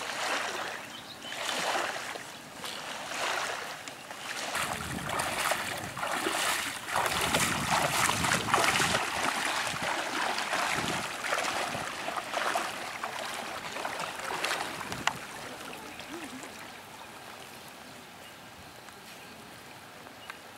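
Legs wading through shallow lake water: rhythmic sloshing swishes about once a second or so, stopping about 15 seconds in as the waders come to a halt.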